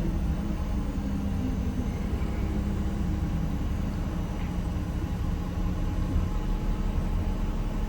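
Cummins ISM diesel engine of a 1993 Gillig Phantom transit bus running steadily with a low, even hum, heard from inside the bus while riding.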